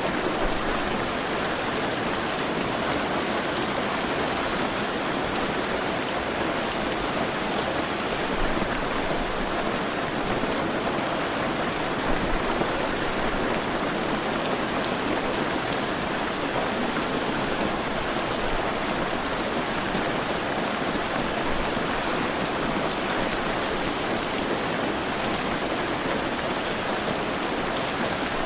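Heavy rain falling steadily, a dense even hiss of drops with no pauses.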